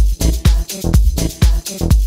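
Background electronic dance music with a steady kick-drum beat and hi-hats.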